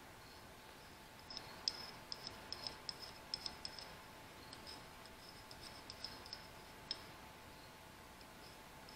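Faint, irregular light clicks and scrapes of a hardened piston ring's ends rubbed against a small hand stone, knocking the burrs off the freshly ground ring gap. The sounds come in quick bunches through the first two-thirds and thin out near the end.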